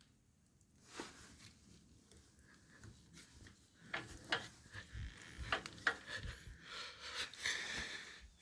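Scattered light knocks, clicks and rubbing, coming more often in the second half.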